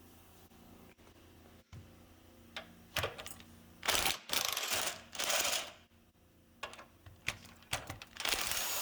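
Quiet for the first three seconds, then irregular bursts of rapid mechanical clicking and rattling from hand-tool work on the S10 pickup's front end.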